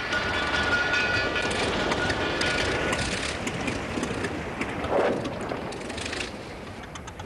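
An early motor vehicle's engine running with a rattling, rumbling noise as it drives. Music with held notes fades out in the first couple of seconds, and there is a louder swell about five seconds in.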